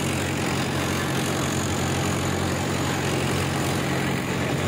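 Tractor's diesel engine running steadily at an even pitch, working in low gear with the PTO at 540.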